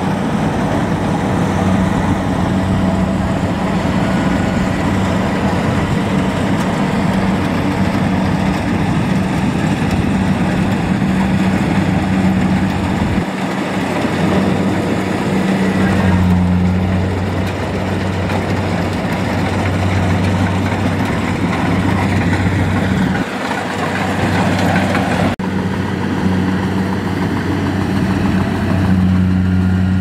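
Kubota DC-70 Plus combine harvester's diesel engine running steadily under load while it cuts rice, a low hum with dense mechanical noise over it; the engine note shifts abruptly a few times.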